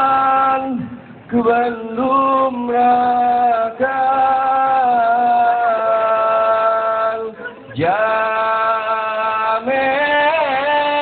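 Saman dance chant from the Gayo tradition of Aceh, sung in long held notes that slide between pitches, with two short breaks in the line.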